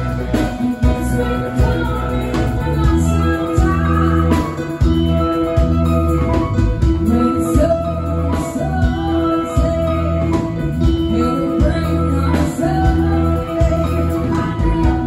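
Live rock band playing, with electric guitars, a drum kit and keyboard under a woman singing lead.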